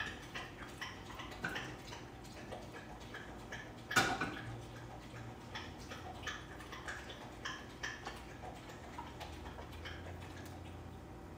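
Light, irregular kitchen clicks and taps from handling utensils and containers while preparing food, with one louder sharp knock about four seconds in.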